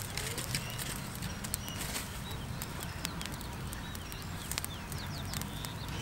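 Small dry-grass fire crackling in scattered sharp clicks, with a few short bird chirps over a steady low background rumble.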